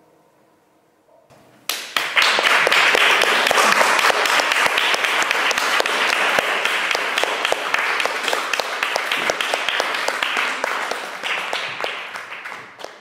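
Audience applauding, starting suddenly about a second and a half in and dying away near the end. Faint sustained music plays before the clapping starts.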